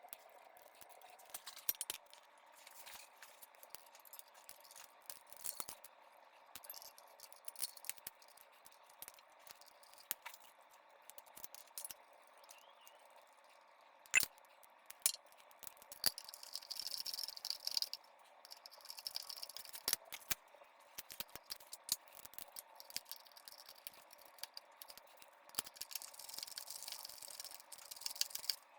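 Scattered clicks, rattles and light knocks of metal and plastic parts being handled during repair work, over a faint steady hum; twice a short hissing rustle joins in.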